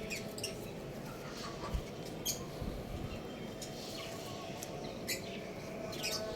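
Chicks chirping: short, high cheeps at irregular moments, about one a second, over a steady low background noise.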